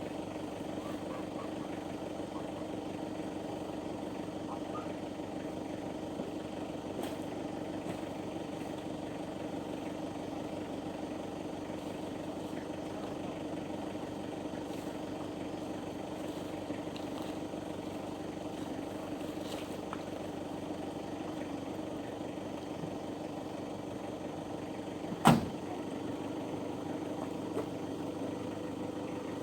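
A vehicle engine running steadily at an even pitch, with one sharp knock or clack about 25 seconds in.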